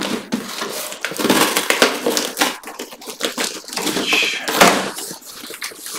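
Corrugated cardboard shipping box being opened: its tear strip pulled along the edge, then the flaps handled, giving irregular scraping and rustling of cardboard with one louder scrape about four and a half seconds in.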